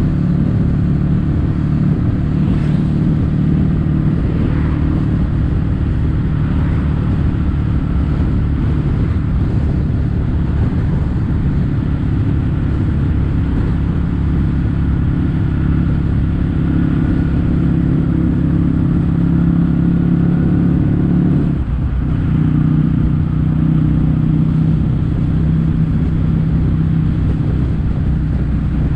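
Kawasaki W800's air-cooled parallel-twin engine running steadily through Yamato stainless-steel Cabton-style silencers while the bike is ridden. The note breaks off briefly about three quarters of the way through, then picks up again.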